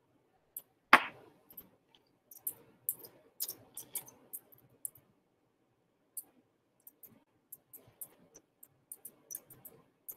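Irregular clicking from a computer mouse and keyboard as someone works at a computer, with a quick run of clicks in the first half and scattered ones later. One louder knock about a second in.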